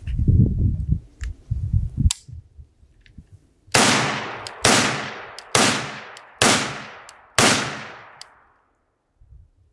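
Five semi-automatic rifle shots from a Vepr, an AK-pattern rifle in 7.62×39, fired at a steady pace a little under a second apart, each trailing off in echo. Low rumbling thuds come before them in the first two seconds.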